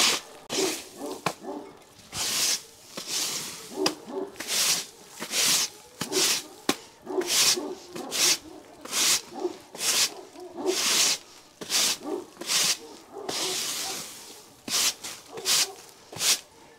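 Broom sweeping straw and dirt across a barn floor: repeated scratchy strokes, about one or two a second.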